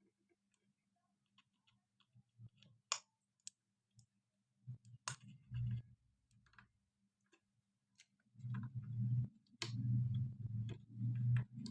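Scattered sharp clicks and handling noise as the wires and plastic power supply are worked by hand while being connected. Dense low rubbing and rumbling starts about eight seconds in, over a faint steady low hum.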